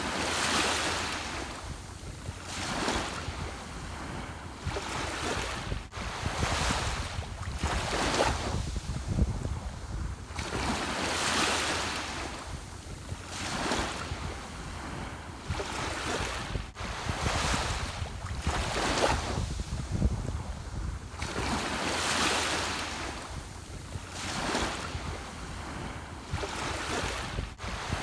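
Ocean waves breaking and washing in one after another, swelling and fading about every two seconds over a low steady rumble.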